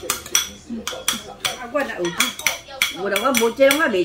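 Metal spoons clinking against a stainless-steel pot and ceramic bowls: a quick run of sharp clinks, about three a second. Voices talk over the last second or so.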